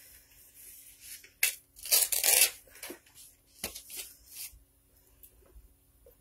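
Paper rustling and crinkling as notebook pages are handled and turned, loudest in a burst about two seconds in, followed by a few small knocks.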